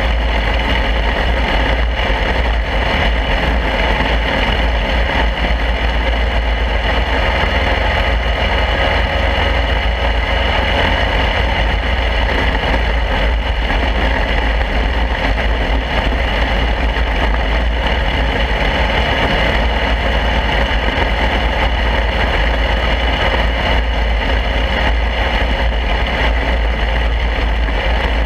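Mini wedge dirt race car's small single-cylinder engine running steadily at speed, heard from a camera mounted on the car, over a constant deep rumble.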